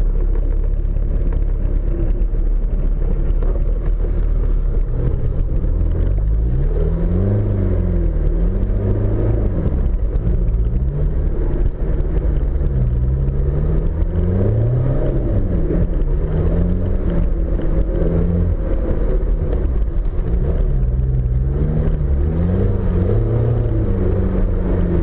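Off-road 4x4's engine running under load, heard close up from the bonnet, its pitch rising and falling again and again as the throttle opens and closes over the rough trail, over a steady low rumble.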